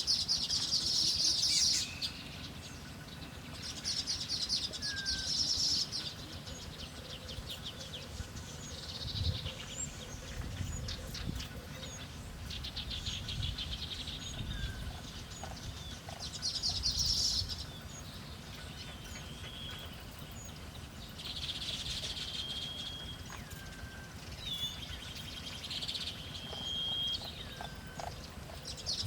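Small wild songbirds calling: repeated bursts of rapid, high chattering about two seconds long, with short whistled notes and a few steadier high notes between them.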